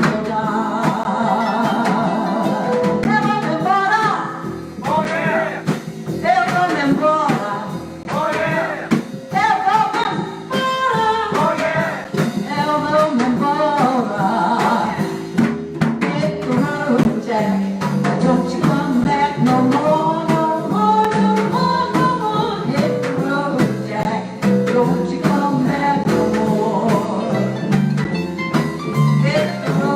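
Live jazz band playing a tune, with a pitched melody line moving over a steady accompaniment.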